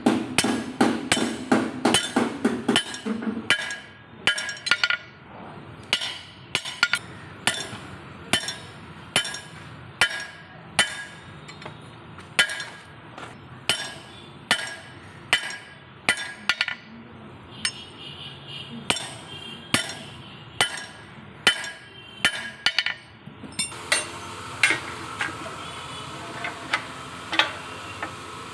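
Hammer striking a square iron bar held in a steel bending jig: ringing metal-on-metal blows, rapid for the first few seconds, then a steady beat of about one or two strikes a second. Near the end the blows stop and a steady hiss with light clinks follows.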